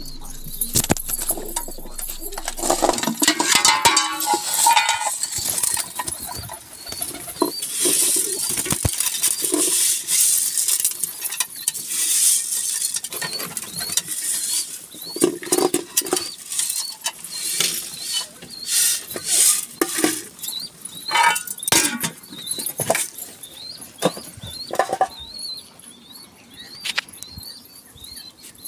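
A crowd of domestic pigeons flapping and jostling, their wings beating in irregular flurries, with the pattering and scuffling of many birds on the ground. The flurries are busiest in the first half and thin out towards the end.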